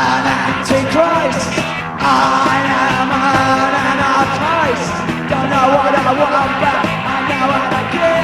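Punk rock song: a full band playing with a sung lead vocal.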